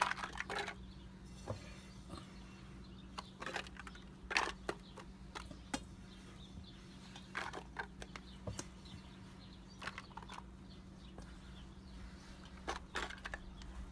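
Soft scattered rustles and crinkles of crumbled vegan chicken being spread by hand in a disposable aluminium foil pan, over a steady low hum.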